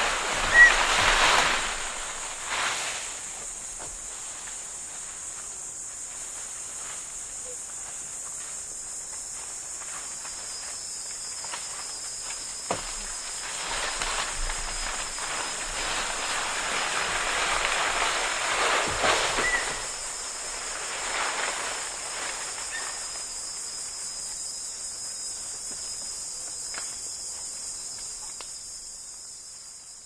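A bonobo (pygmy chimpanzee) drags a branch through the forest undergrowth, making rustling, scraping swells about a second in and again from about fourteen to twenty seconds in. A steady, high cicada drone runs under it and fades out at the end, and a bird chirps briefly once or twice.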